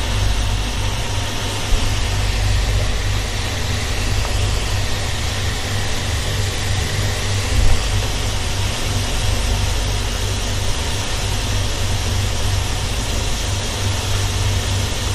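Gas stove burner on a high flame under a small saucepan of water and black tea dust at a rolling boil: a steady low rumble with a bubbling hiss over it.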